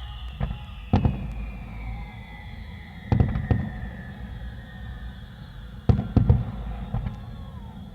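Fireworks going off: single bangs, then two quick clusters of several sharp reports over a continuous low rumble. A high whistle slides slowly down in pitch through the first half.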